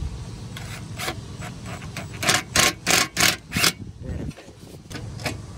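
Cordless impact driver driving screws through the base collar of a metal turbine roof vent, in a run of short bursts about three a second around the middle, over a low steady rumble.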